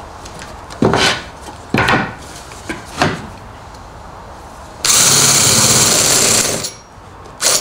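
A few sharp knocks as a wooden board is turned over and set down on the bench, then a cordless drill with a spade bit boring into the board for about two seconds, finishing the hole from the second side after the point has come through. One more knock near the end.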